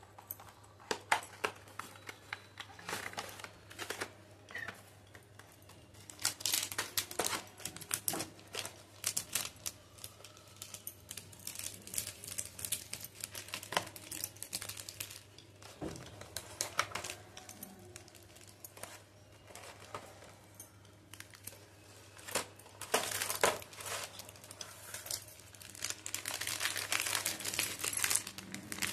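Crinkling and rustling of the clear plastic tray and the foil and plastic wrappers of chocolate bars as they are handled, in irregular crackly bursts with sharp clicks. The bursts are busiest about six seconds in and again over the last few seconds.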